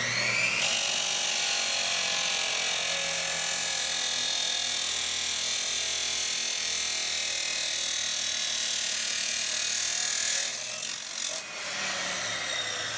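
Makita 2414 chop saw's abrasive cut-off wheel grinding through thin steel angle iron, a loud, steady grind over the motor. About ten seconds in, the wheel lifts out of the cut and the motor runs free, quieter.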